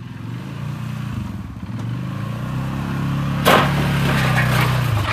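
ATV engine running and pulling under throttle as the quad is driven up onto a wooden trailer deck, growing louder as it comes. A sharp clatter about three and a half seconds in as the wheels climb onto the trailer.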